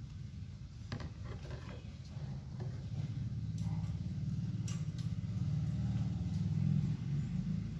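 Handling noise from a plastic cordless tyre inflator being turned over in the hand, with a few light clicks and taps, over a low rumble that swells from about three seconds in and eases near the end.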